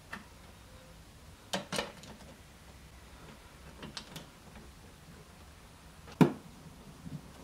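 A plastic switch faceplate being handled and pressed into place over two toggle switches: a few sharp plastic clicks and taps, with the loudest single click about six seconds in.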